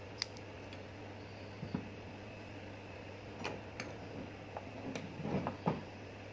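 Scattered light metal clicks and knocks as the restored pneumatic chipping hammer and its air hose are handled and laid on a steel workbench, over a steady low hum. There is a sharp click just after the start, and the knocks cluster toward the end.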